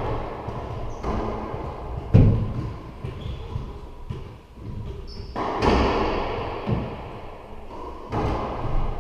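Racquetball hits in an enclosed court: the ball struck off racquets and walls, each hit a sharp thump that rings on in the court's echo. The loudest is a low thud about two seconds in, with more hits after a short lull near the end.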